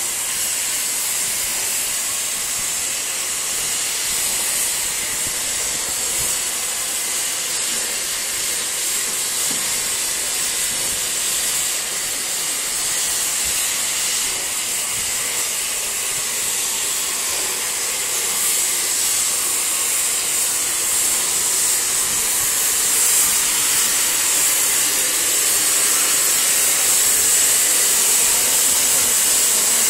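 Steady hiss of steam from the standing Peppercorn A1 Pacific steam locomotive 60163 Tornado, growing a little louder in the second half.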